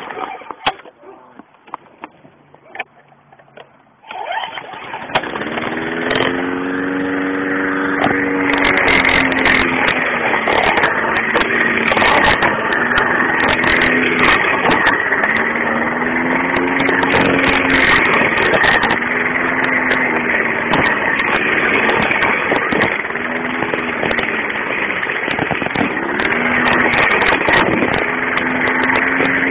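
Lawn mower starting up about four seconds in, then running steadily as it is pushed over grass, its pitch repeatedly dipping and recovering.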